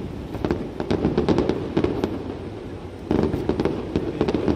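Aerial fireworks shells bursting in rapid volleys, a dense run of quick pops over a low rumble; a new, louder volley starts about three seconds in.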